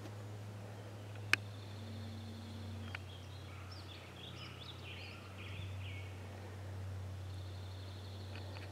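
Faint birds chirping and calling in woodland over a steady low hum, with a single sharp click a little over a second in.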